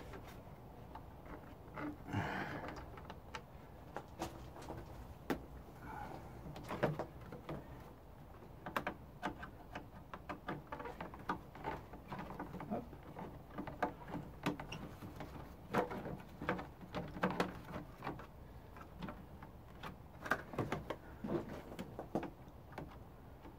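Screws being worked out of a scooter's plastic body panels by hand: irregular light clicks, taps and knocks of tool, screws and plastic.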